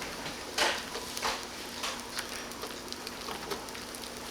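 Honey and violet flowers simmering in a pot on low heat: a steady soft sizzling hiss with a few light clicks or pops, most of them in the first half.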